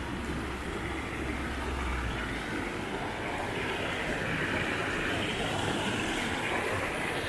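Shallow mountain river rushing steadily over stones, a continuous hiss of running water that grows a little brighter in the second half, with a low rumble in the first couple of seconds.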